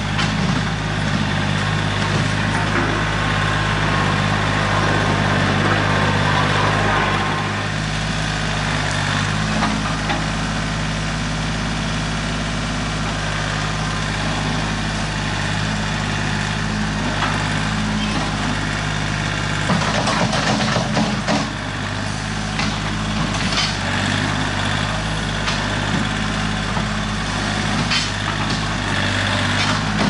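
Compact tractor engine running steadily while it works through tall grass with a rear blade. About twenty seconds in there is a short burst of crackling and clattering.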